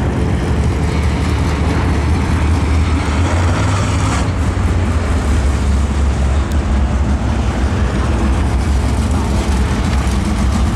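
Super late model race car engines running steadily at low speed, a continuous low rumble with no revving.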